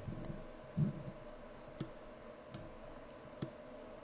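Computer mouse clicks, four short sharp clicks spread about a second apart, with a soft low thump just under a second in. A faint steady hum runs underneath.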